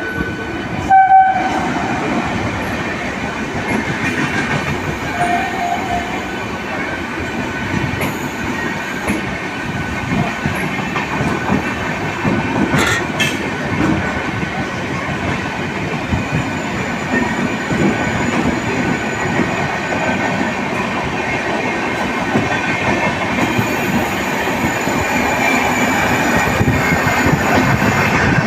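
Patna Janshatabdi Express passenger train running through the station, its coaches and wheels rumbling and clattering on the rails, with a short horn blast about a second in. The noise grows slightly louder toward the end.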